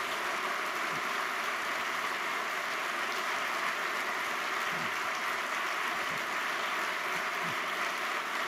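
Steady applause from an audience.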